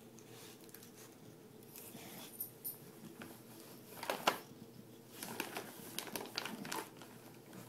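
A bulldog rummaging nose-first in a cardboard box of packaged toys and treats: scattered rustling and crinkling of tissue paper and packaging, loudest about four seconds in and again in a busy patch a little later.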